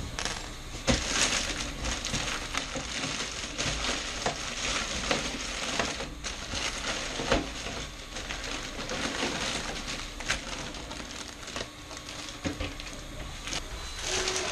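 Clear plastic packaging bag crinkling and rustling as it is handled and pulled off, with a few sharp crackles.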